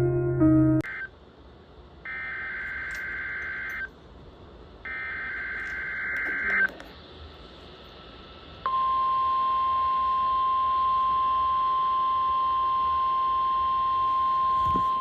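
Piano music cuts off, then two buzzy bursts of Emergency Alert System SAME header data, each just under two seconds, followed about nine seconds in by the steady single-pitch 1050 Hz NOAA Weather Radio warning alarm tone, sounded as a test.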